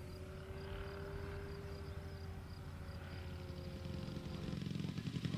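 Faint steady drone of a small aircraft engine, its pitch rising and falling slightly, growing louder near the end. A faint high chirp repeats above it.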